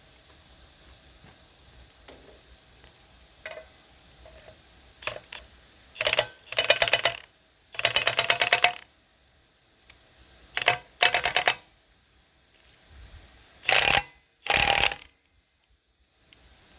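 Ratchet wrench clicking in about seven short bursts of rapid clicks, the back-strokes of a socket ratchet run on bolts, with a few single clicks before them.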